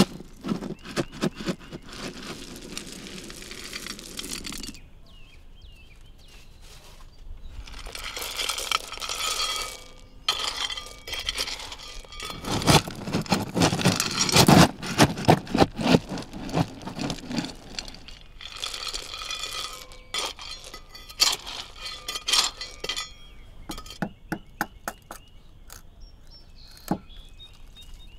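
Lumps of charcoal clinking, crackling and crunching in a forge as they are shoveled and raked, in several long bursts. Near the end come sparser sharp single clicks, as flint is struck on steel to light the forge.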